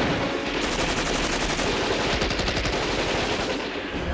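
Rapid bursts of automatic gunfire, many shots in quick succession, easing off near the end.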